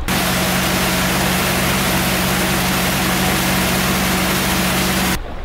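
Outboard motor running steadily as the boat moves at speed towing a tube, with a loud hiss of rushing water and wind. The sound cuts off suddenly near the end.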